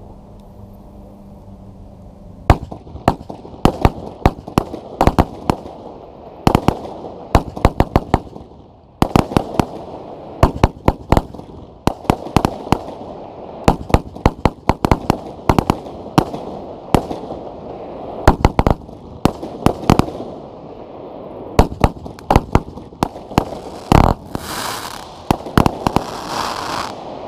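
WECO Prime Time 41-shot firework battery firing: after a quiet start, a rapid string of sharp launch pops and bursts in quick clusters begins about two and a half seconds in. Near the end a heavier bang is followed by a dense crackling hiss.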